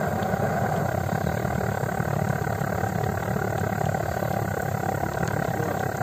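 Gas blowtorch burning steadily under a frying pan, giving an even, continuous rushing noise.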